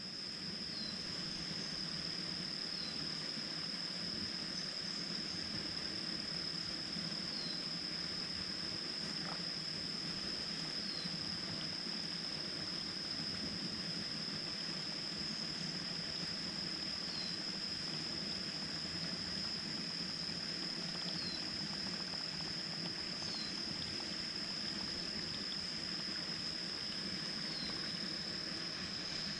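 Insects trilling in one steady, unbroken high tone, with a faint short falling chirp every few seconds.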